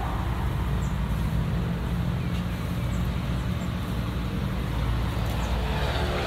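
Steady low rumble of road traffic passing nearby, with no sudden sounds.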